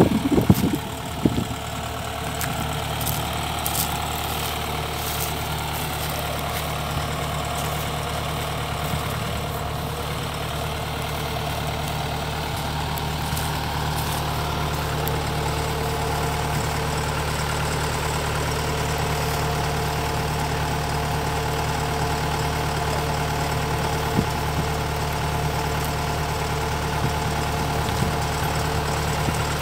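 Diesel engine of a Kubota DC-105X combine harvester running at a steady idle, with a few sharp knocks in the first second or so.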